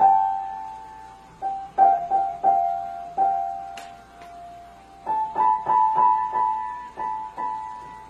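Grand piano notes pressed by a cat pawing the keys: the same few notes above middle C struck one or two at a time at uneven intervals, each ringing on. The taps come sparsely at first and in a quicker run from about five seconds in, with one short click near the middle.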